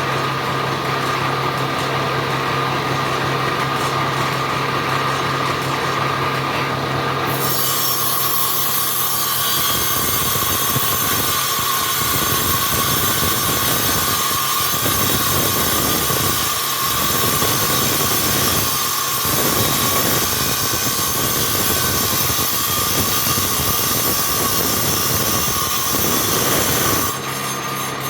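A power tool's motor running steadily, then cutting wood from about seven seconds in until near the end, when it drops back to running free.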